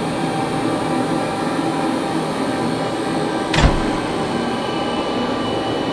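Steady mechanical hum of a sci-fi containment unit, a dense machine drone with several steady tones in it. A brief low thud about three and a half seconds in.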